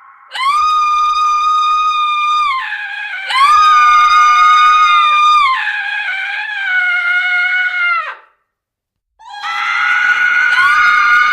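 A woman's high-pitched screams, each held at a steady pitch for about two seconds. Three come in close succession, the third lower and sliding down. A short silence follows, then another long scream begins.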